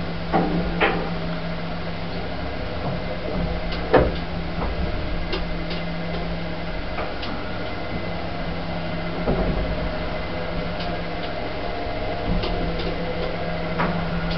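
Old Wadsworth lift in motion, heard from inside the car: a steady machine hum with a low drone. Sharp mechanical clicks and clunks come about half a second in and again at about four seconds, the loudest, with another near the end.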